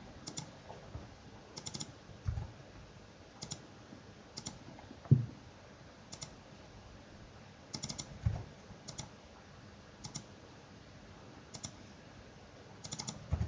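Scattered clicks of a computer mouse and keyboard, about a dozen spread out, some in quick pairs or short runs, with a few soft low thumps among them.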